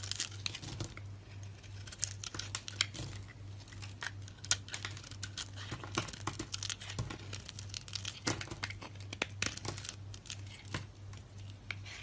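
Dry soap being cut and crushed, with irregular crisp crackling and crunching clicks over a steady low hum.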